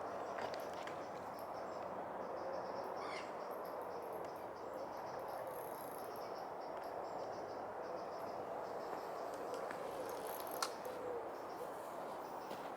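Lakeside evening ambience: insects such as crickets chirping in rapid repeated pulses over a steady background hiss, with one sharp click about ten and a half seconds in.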